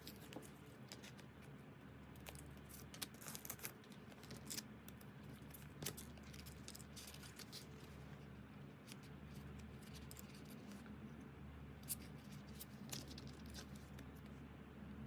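Faint, scattered clicks and short rustles of paper and plastic packaging being handled, over a low steady hum.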